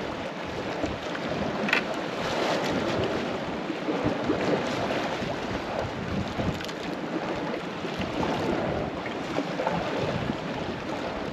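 Sea waves washing against a rocky shore, swelling and easing, with wind buffeting the microphone.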